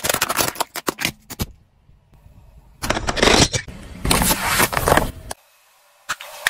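Hard plastic crackling and cracking as a car tyre rolls onto a plastic jug and flattens it, a quick run of sharp snaps. After a short pause come two further noisy bursts of crushing, the second as the tyre presses down on a plastic soda bottle.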